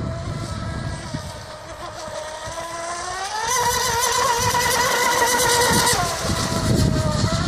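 RC hydroplane's brushless electric motor (4074-size, 1400KV on 6S) whining as the boat runs. The whine climbs in pitch about three seconds in as it goes to full throttle, holds high, and drops a little about six seconds in as the throttle eases.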